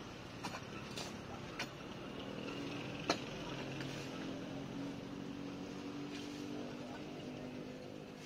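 A hand digging tool striking hard, dry ground four times in the first three seconds, the last strike the sharpest. A motor vehicle's engine hums steadily from about two seconds in and fades near the end.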